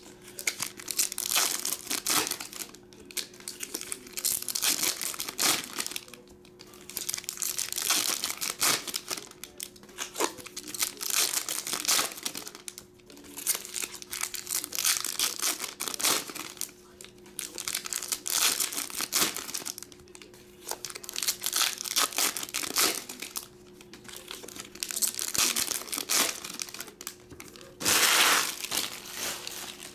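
Foil baseball card pack wrappers being torn open and crinkled by hand, in repeated bursts of rustling with short pauses between, the loudest burst near the end. A faint steady hum runs underneath.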